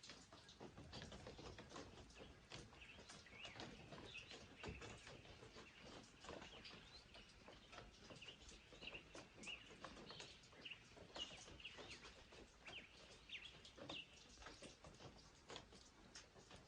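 Faint bird chirps: many short calls, one after another, with a few light clicks among them.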